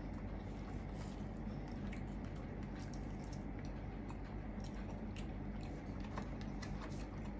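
A person chewing a soft pretzel-crust pizza close to the microphone: faint wet mouth clicks and smacks, scattered irregularly, over a steady low hum.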